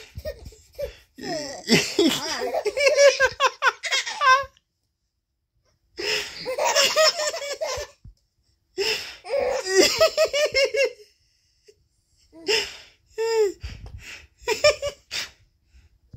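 Baby laughing and squealing in several high-pitched bursts with short pauses between them.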